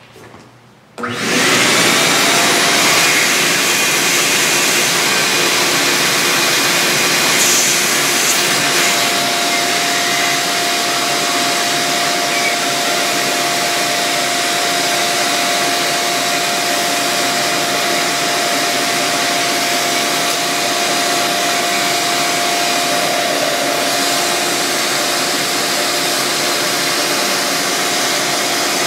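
Ridgid wet/dry shop vacuum switched on about a second in and running steadily, its nozzle held at an engine block's deck to suck up the debris being picked out of the coolant passages.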